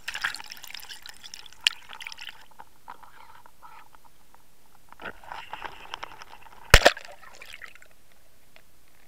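Water gurgling and splashing around a camera dunked under the surface, in two spells, with one loud, sharp knock a little before seven seconds in. It then settles to a faint steady hiss with a few small ticks.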